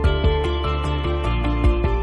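Ambient background music: sustained synth chords over a steady beat, with the bass shifting to a new note about a second and a half in.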